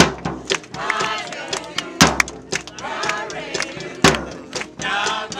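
Crowd clapping in a loose rhythm, with heavier thumps about every two seconds, while voices shout and sing over it.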